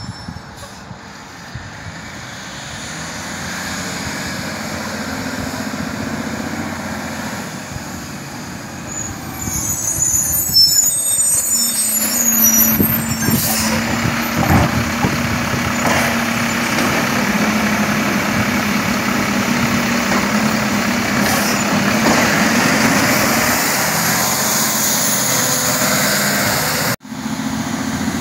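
2011 Mack LEU garbage truck with a Labrie Automizer automated side-loader: the diesel grows louder as the truck pulls up, and the air brakes hiss about ten seconds in. Then a steady drone runs for about ten seconds while the hydraulic arm grabs, lifts and empties the cart. The sound drops out briefly near the end.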